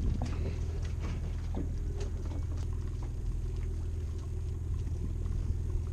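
Steady low rumble of a party fishing boat's engine running, with a few light clicks in the first two seconds.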